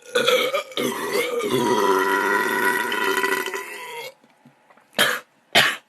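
A man's long, loud soda burp lasting about four seconds, wavering in pitch at first and then held steady, from the carbonation of a soda he has just chugged. Two brief sharp sounds about half a second apart follow near the end.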